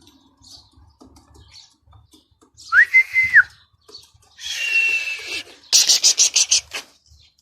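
A person whistles to flying pigeons: one clean whistle that rises, holds and drops, then a breathier whistle. It is followed by a quick run of sharp claps or clicks, about eight a second, for about a second.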